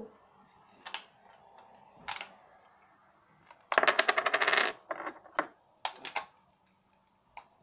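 Power Rangers morpher toy and its power coins being handled: separate clicks and clinks, with a rapid clatter lasting about a second near the middle, as coins are fitted into the morpher.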